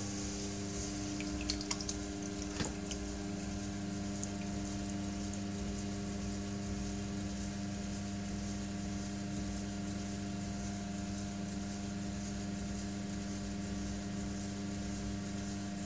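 Electric pottery wheel running with a steady hum while wet hands press and squish clay being centred on the spinning wheel head. A few short clicks come about two seconds in.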